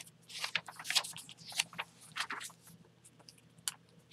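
Paper journal pages being turned and brushed by hand: a run of short papery rustles, busiest in the first two and a half seconds and sparser after, over a faint steady low hum.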